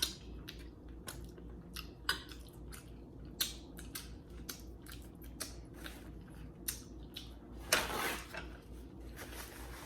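Close-miked chewing of seafood gumbo: scattered wet mouth clicks and smacks. About eight seconds in there is a louder noisy sound lasting about half a second.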